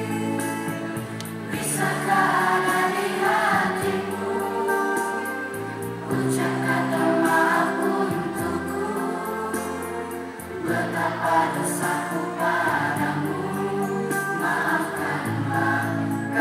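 A group of children singing together as a choir, in phrases of held notes, over steady instrumental accompaniment.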